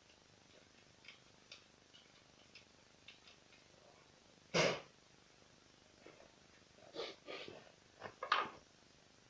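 Breathy puffs of air blown onto a chainsaw's plastic cover to clear dust while cleaning it: a few faint light scratches, one sharp puff about four and a half seconds in, then a cluster of further puffs and rustling near the end.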